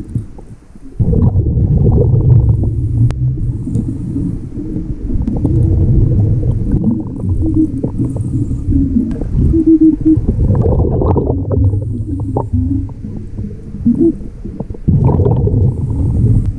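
Muffled underwater rumbling and gurgling picked up by a camera held underwater during a dive, dropping away briefly at the start and again near the end.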